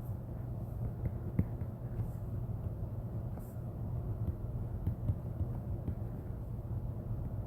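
Steady low hum and background noise with a few faint, short clicks.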